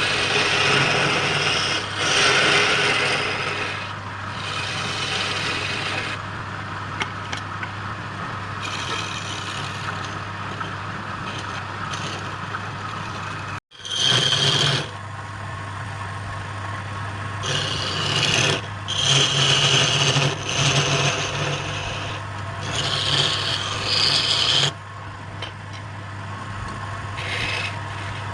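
Wood lathe running with a steady motor hum while a turning tool cuts and scrapes the spinning wood in repeated spells of rasping noise. The sound cuts out abruptly about halfway through, then the same work resumes.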